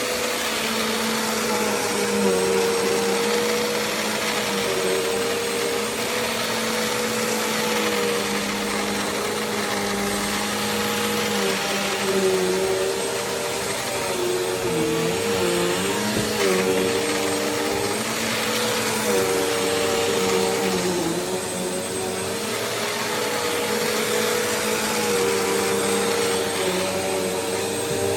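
Bissell CleanView Swivel Rewind Pet Reach upright vacuum cleaner running: a steady motor whine over a rush of airflow, its pitch dipping briefly several times as it is worked.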